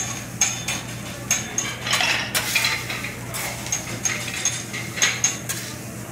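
Metal hibachi spatulas clacking and scraping on a steel teppanyaki griddle as rice is chopped and turned into fried rice: many quick, irregular ringing clacks that thin out near the end.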